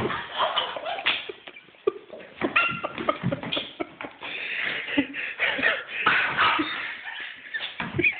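A Chihuahua scuffling and snapping at a Labrador: a busy run of short, sharp noises, with a few brief high calls about two and a half seconds in.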